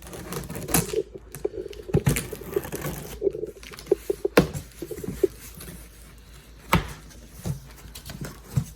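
A cardboard box being opened by hand: irregular scraping, rustling and tearing of cardboard and packing, with scattered clicks and knocks.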